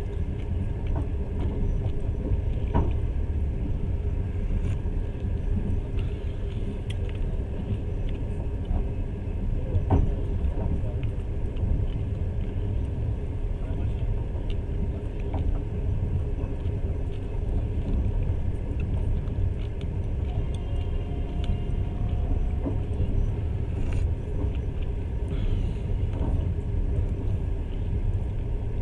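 Passenger train carriage running at speed: a steady low rumble of wheels on the rails, with scattered short clicks and knocks.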